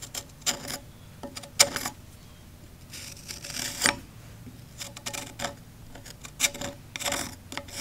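Flat-blade screwdriver scraping and ticking over the carbon-crusted exhaust valve in a Jeep 4.0 cylinder head's combustion chamber: a run of short scrapes and clicks, with a longer rasp about three seconds in, as the valve edge is probed for burning.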